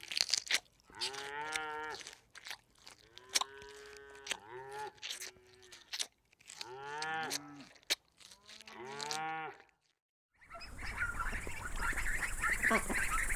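A calf bawling: about five drawn-out, rising-and-falling moos with short pauses between them. After a brief break near the end, a different, busier and noisier sound takes over.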